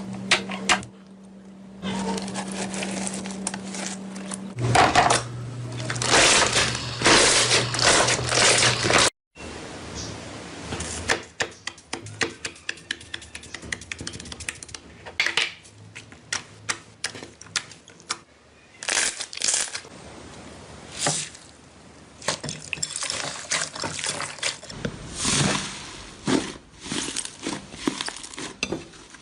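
Slime being squeezed, stretched and poked by hand, giving rapid runs of sticky clicks and wet crackling pops in bursts.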